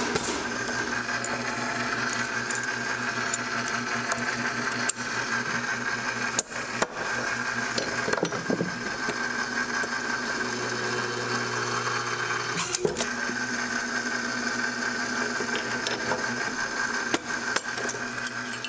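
The small electric motor and hydraulic pump of a homemade copper-rivet press running steadily, its low hum growing heavier for a couple of seconds about ten seconds in. Occasional sharp metal clicks and knocks come from the steel die and the lever being worked.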